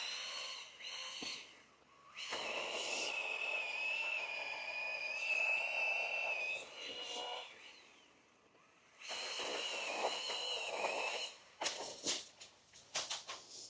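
Chainsaw heard from a distance, running in two long bursts with a wavering high whine, as from a cut. A few sharp clicks or cracks come near the end.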